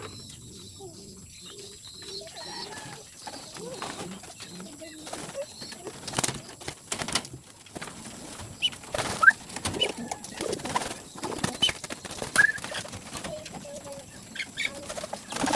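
Racing pigeons cooing in their loft, with some wing flapping. Irregular sharp knocks and clicks run through the second half, the loudest sounds present.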